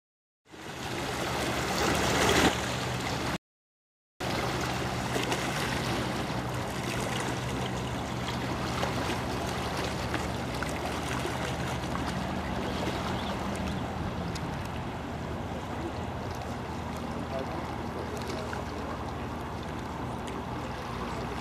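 Steady low hum of a river ferry's engine, heard under a hiss of moving air and river water. A louder rush of noise comes about two seconds in, and the sound drops out completely for under a second shortly after.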